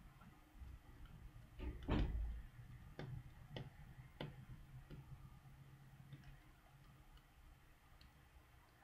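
Light clicks and taps from small tools and parts as a smartphone is taken apart. The loudest comes about two seconds in with a soft knock under it. Then a few sharp ticks follow about every half second, growing fainter and sparser toward the end.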